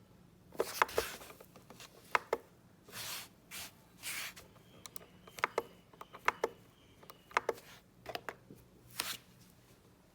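Handling noises: scattered sharp clicks and taps, some in quick pairs, with a few short rustling hisses in between.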